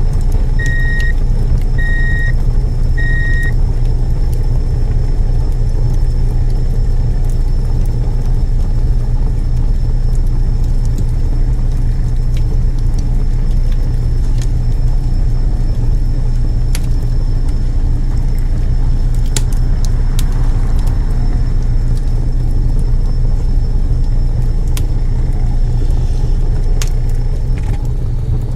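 Heavy truck engine running steadily with a low rumble, with reversing beeps about once a second that stop a few seconds in.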